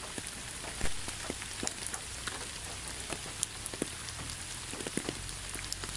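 Steady rain falling, an even hiss with the scattered patter of individual drops and a low steady rumble underneath.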